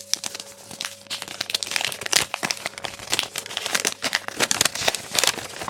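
A folded paper instruction leaflet rustling and crinkling as it is unfolded and handled, with many small irregular crackles.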